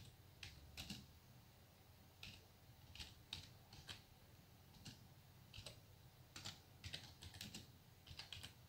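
Faint typing on a computer keyboard: irregular single key clicks and short runs of keystrokes with brief pauses between them.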